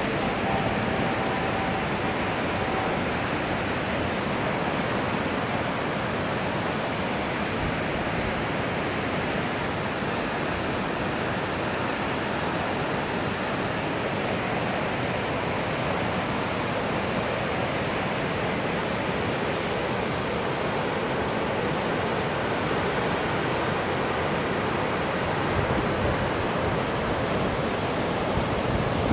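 Rapids of the Niagara River rushing through the gorge: a steady, unbroken rush of white water.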